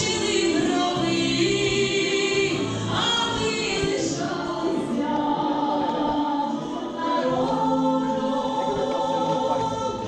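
A choir singing slow, held chords.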